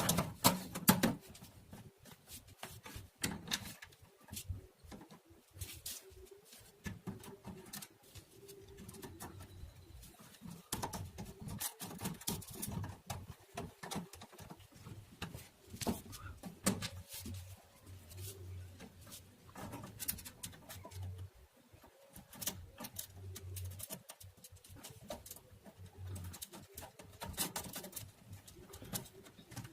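Irregular small clicks and knocks of parts being handled and fitted while a USB player board is mounted into an amplifier's front panel, with a faint intermittent low hum.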